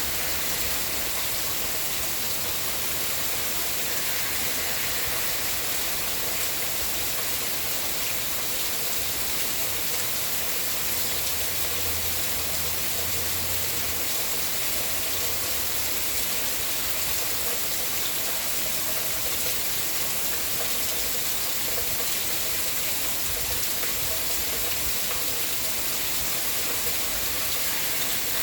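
Steady rainfall: an even, unbroken hiss of falling rain. A faint low hum comes in for a few seconds about halfway through.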